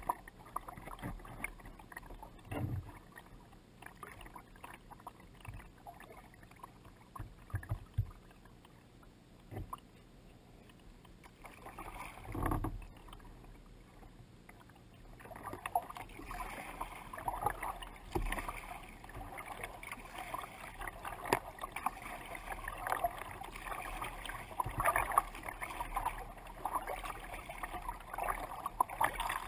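Lake water lapping and splashing against a kayak's hull as it moves through light chop, with irregular small slaps; quieter at first and busier from about halfway through.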